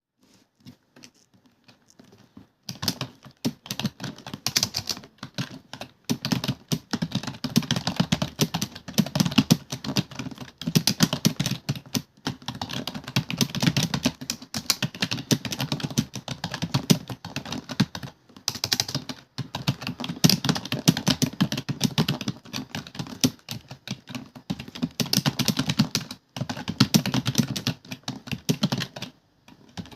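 Computer keyboard being typed on quickly and continuously, a rapid stream of key clicks with short pauses, starting about two and a half seconds in.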